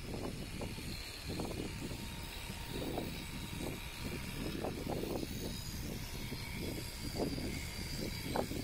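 Electric shearing handpiece running steadily as it cuts through an alpaca's fleece, a constant motor drone with irregular swells.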